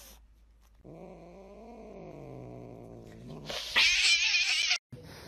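Angry cat giving a long, low, wavering growling yowl for about two seconds, then a loud, sharp hiss about a second later.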